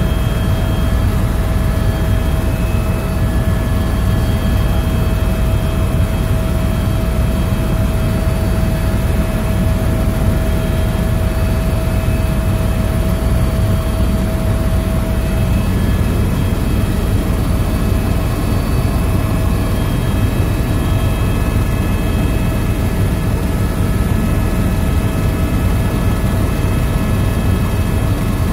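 Helicopter noise heard from inside the cabin: a steady, loud rotor and engine drone, heaviest in the low range, with thin steady whines on top, one of which fades out about halfway through.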